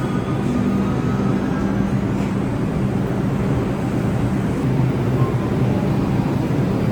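An R62A subway train running on the tracks, a steady rumble and hum with no clear change.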